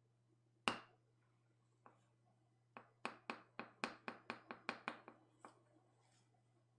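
Light taps on a small paint pot and cup, knocking thinned acrylic paint through a cloth filter: one sharp tap, then a quick run of about ten taps, roughly four a second. A faint steady hum runs underneath.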